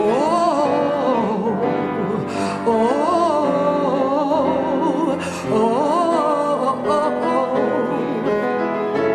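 Female soloist singing a wordless, melismatic run that bends up and down in pitch, over sustained piano accompaniment.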